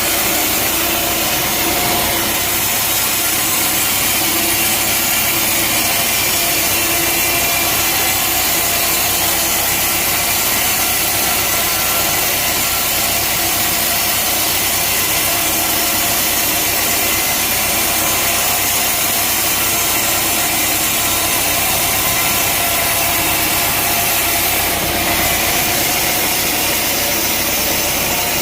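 Sawmill saw running steadily through a log, with an engine running underneath.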